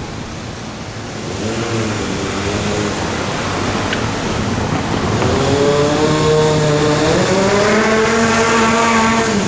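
A vehicle accelerating, its motor tone rising in pitch in steps and levelling off near the end.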